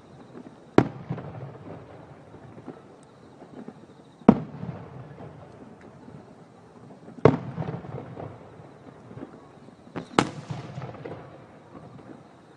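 Fireworks bursting: four sharp bangs about three seconds apart, each followed by a trailing crackle, with a smaller crack just before the last.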